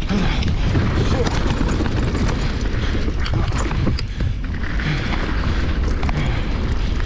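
Mountain bike rolling fast down a dirt and gravel trail, heard through a body-mounted action camera: heavy wind buffeting on the microphone with tyre noise and scattered sharp clicks and rattles from the bike and loose stones.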